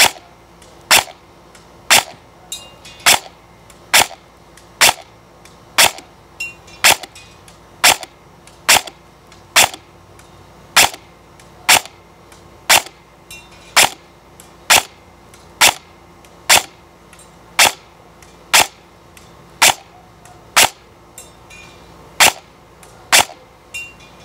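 Double Eagle M906A airsoft electric gun firing single shots on semi-auto, about two dozen sharp cracks spaced roughly a second apart. A few shots are followed by a fainter tick.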